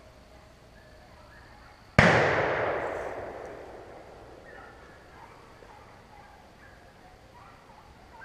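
A single close gunshot about two seconds in, its report echoing and dying away over about two seconds.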